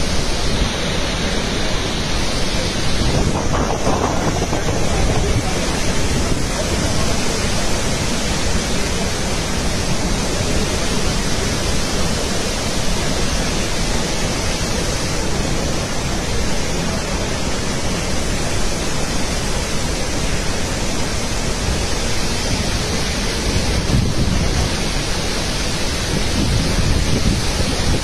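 Water released through the open spillway gates of the Indira Sagar Dam on the Narmada, pouring down in a steady, loud rushing noise.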